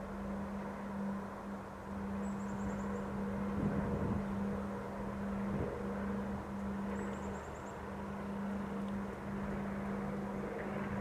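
Gusting wind in a windstorm, a steady rushing noise that swells and eases, over a constant low hum. Two brief high chirping trills come through, about two seconds in and again about seven seconds in.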